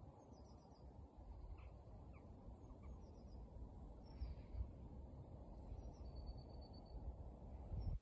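Shallow spring-fed stream trickling over mud and stones as a soft, steady low rush. Small birds sing brief high trills and chirps over it, including a quick, even run of repeated notes about six seconds in.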